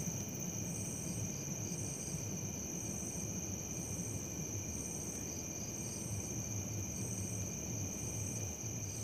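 Night insects, crickets, trilling steadily, with a higher chirp repeating about once a second, over a low steady rumble.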